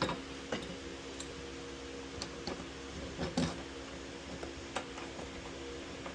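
Scattered light clicks and taps of screws and a steel crash bar being handled and fitted by hand, over a steady low hum.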